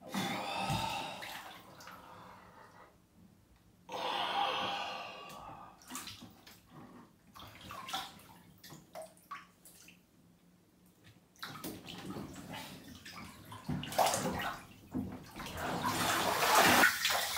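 Water sloshing and splashing in a full bathtub as a person shifts his body in it, in short separate bursts, getting louder and busier near the end as he sits up and leans forward.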